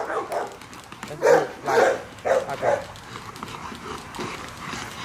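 Young Rottweilers barking in play while tugging at a hanging tire: a few short barks about a second in, then quieter.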